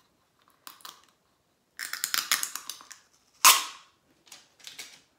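A plastic loose-powder jar and its packaging being worked open by hand: scattered clicks and a run of crackles, then one loud sharp snap about three and a half seconds in, followed by a few lighter clicks.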